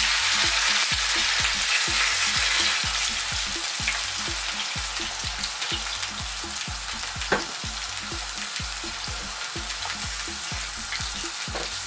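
Cold water poured into a hot pan of oil and seared pork ribs, sizzling and hissing loudly as it hits the hot fat, the sizzle slowly easing as the pan cools. A wooden spatula knocks against the pan a couple of times.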